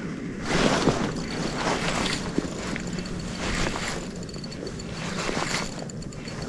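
Bursts of rushing wind and rustling on the microphone as the rod is swept and the angler moves, then from about five seconds in a fast, even ticking from the Daiwa spinning reel while a hooked fish pulls against the bent rod.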